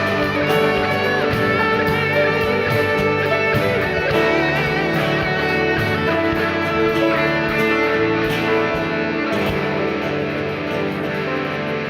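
Instrumental passage of a worship band song led by guitars, with electric guitar over a steady drum beat.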